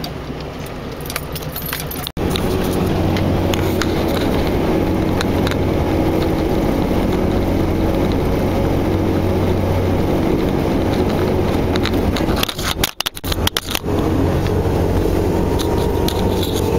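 Steady engine and tyre noise heard inside a vehicle's cabin while driving on a snowy road, with light rattles and clicks. The noise steps up suddenly about two seconds in and dips briefly for a moment a little before the end.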